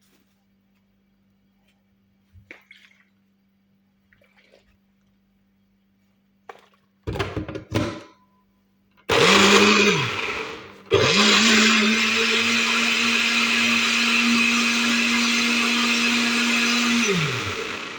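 Electric blender blending fruit and water. After a few quiet seconds with faint knocks, it gives two short pulses, then spins up. It stops briefly, then runs at a steady pitch for about six seconds before winding down near the end and starting again.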